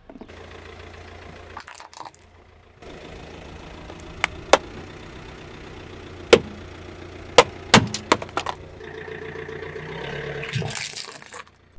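Car engine idling as its tyre rolls slowly over objects, with a run of sharp cracks and snaps through the middle as a hard plastic lunch box gives way under the tyre. Near the end the engine grows louder.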